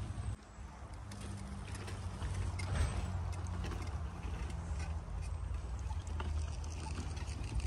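Low, uneven rumble of wind buffeting the microphone outdoors, with a few faint light clicks.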